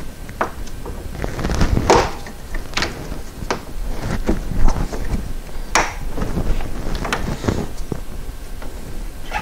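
Hands working a rubber coolant hose onto its fitting on the engine: scattered clicks, rubbing and scraping of rubber and metal, with light knocks, the sharpest a little before the 6-second mark.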